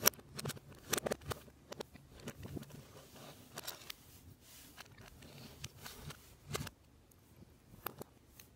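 Plastic Lego Technic pieces being handled and pressed together: irregular small clicks and rattles, the sharpest right at the start and a quick cluster about a second in.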